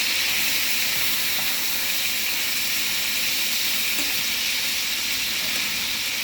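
Food frying in a hot pan: a steady, even sizzle.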